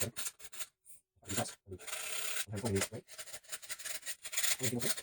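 Round steel chainsaw file rasping against the cutting holes of a Cuisinart food processor shredding disc in a run of short, irregular strokes, with one longer stroke about two seconds in. The file is sharpening the disc's dull cutting edges from the back.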